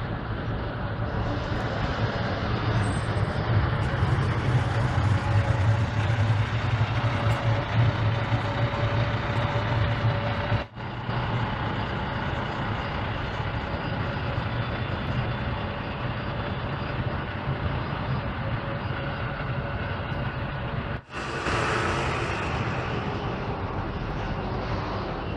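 Diesel bus engines running close by, a deep rumble loudest in the first ten seconds, as buses stand at and pull away from the stop, among them a Mercedes-Benz Intouro coach. The sound breaks off abruptly twice, and a short burst of hiss comes just after the second break.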